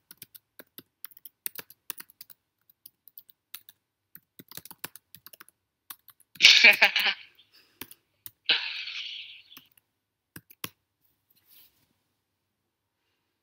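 Typing on a computer keyboard: a run of quick, irregular key clicks through the first half, as a chat message is typed. About halfway through come two short breathy bursts a second or two apart, the first the loudest sound here, then a few single key clicks.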